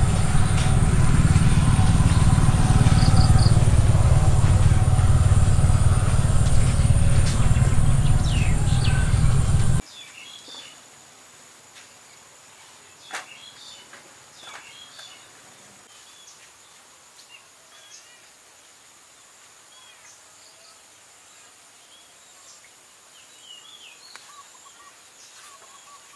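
A loud, steady low rumbling noise that cuts off abruptly about ten seconds in. What is left is quiet: birds chirping and a steady high insect drone.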